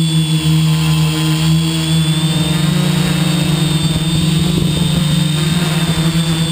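Hexacopter's electric motors and propellers whining steadily, heard through its onboard camera. From about two seconds in, wind buffets the microphone with an uneven low rumble.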